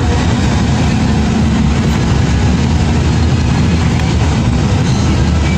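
Steady engine drone and road noise of a moving bus, heard from inside the cabin, low and even with no change in speed.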